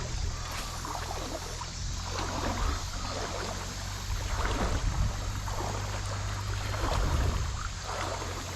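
Creek water flowing and sloshing, under a steady low rumble.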